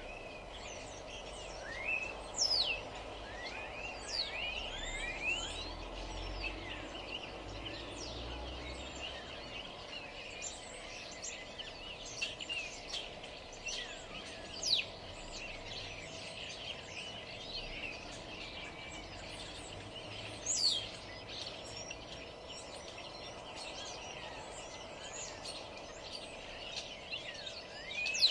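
Several birds singing and chirping, with many quick rising and falling chirps and a few louder calls about a third, half and two-thirds of the way through, over a steady low background hum.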